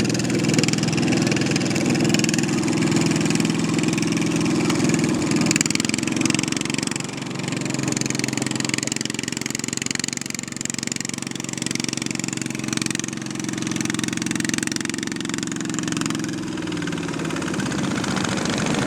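Boat engine running steadily, its note dropping slightly near the end.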